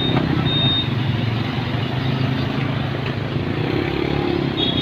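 Road traffic with a motor vehicle's engine running steadily close by, a low even hum.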